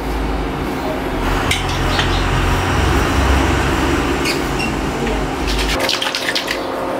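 Water and leftover mango pulp sloshing in a plastic mixer-grinder jar as it is capped and shaken, with sharp rattling knocks near the end, over the steady hum of an induction cooktop.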